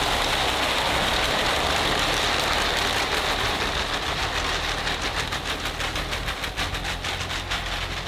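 Marbles rattling hard inside plastic bottles as several people shake them at once: a dense, continuous rattle that settles into a quick, even shaking rhythm in the second half.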